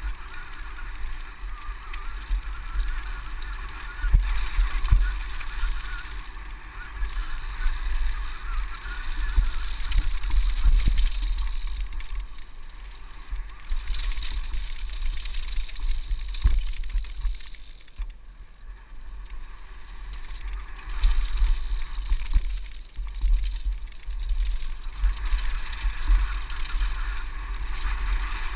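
Mountain bike descending a rough gravel and dirt trail at speed, heard from a bike-mounted camera: wind rumbling on the microphone, tyres crunching over gravel and the bike rattling, with sharp knocks over bumps several times.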